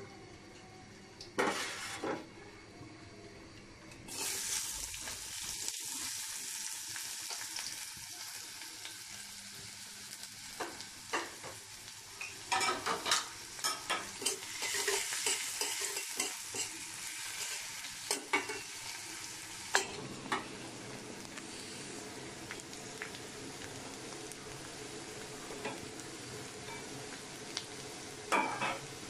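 Sliced onions sizzling in hot oil in a metal karahi, with a metal spatula scraping and clacking against the pan as they are stirred. The sizzling starts suddenly about four seconds in.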